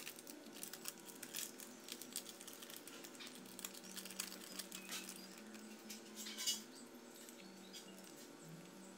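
Faint crinkling of a plastic seasoning sachet and dried flakes pattering onto instant noodles in a ceramic bowl, with a slightly louder rustle about six and a half seconds in.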